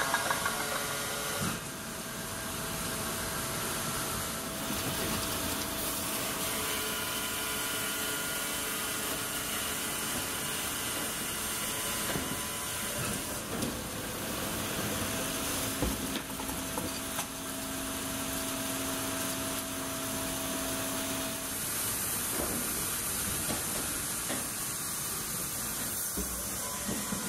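Baker band resaw line running: steady hissing machinery noise from its 40 hp electric saw motor, 40 hp hydraulic pump and its conveyors and chains, with whining tones that come and go and a few knocks as boards move along. Music ends in the first second or two.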